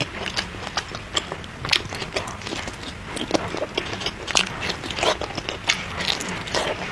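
A person chewing and biting food close to the microphone: a rapid, irregular run of wet clicks, smacks and crunches.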